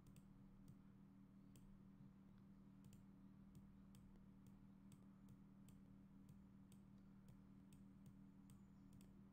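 Faint computer mouse clicks, about two a second, over a low steady hum.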